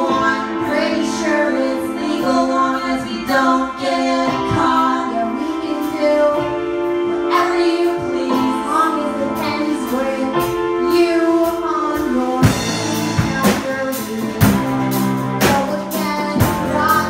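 Live rock band playing: a woman sings lead over electric guitar, bass guitar and keyboards. About twelve seconds in, the drum kit comes in with a steady beat and the low end fills out.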